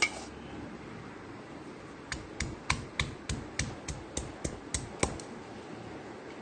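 Pestle pounding chilies, garlic, green onion and ginger in a mortar: a run of sharp, evenly spaced knocks, about three a second, starting about two seconds in.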